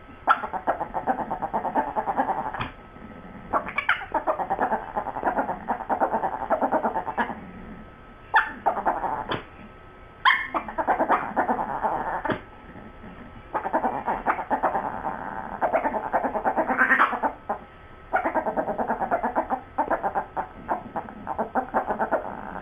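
Chihuahuas growling and grumbling at each other over a bone, in rattling bouts of a few seconds with short pauses between. Some bouts open with a sharper, louder sound.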